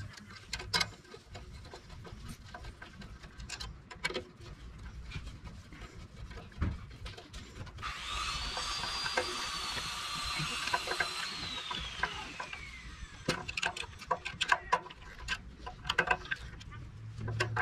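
Hand tools working on the carburetor mounting bolts of a Briggs & Stratton small engine: scattered clicks, taps and scrapes of a screwdriver and metal parts. About eight seconds in a hiss with a high whine sets in for a few seconds, then the whine falls in pitch and fades out.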